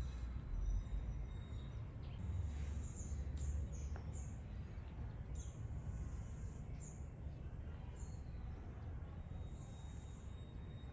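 Birds chirping in short, high calls that come every second or so, over a steady low rumble of background noise.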